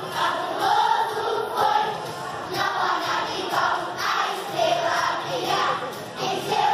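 Children's choir singing, many young voices together.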